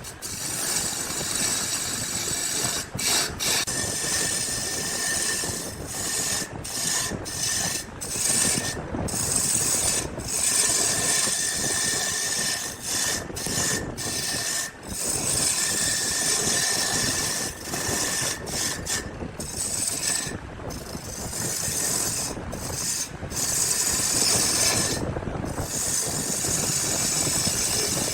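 Power tool working wood: a steady rasping, rubbing noise with a faint steady whine, broken by brief dips many times as the tool eases off the work.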